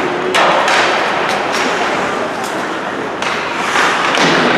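Ice hockey game sounds in an arena: a steady din of crowd voices and skates on the ice, broken by about half a dozen sharp knocks and thuds of sticks, puck and bodies against the boards.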